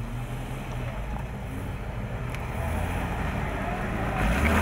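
Four-wheel-drive vehicle engine running steadily, gradually growing louder.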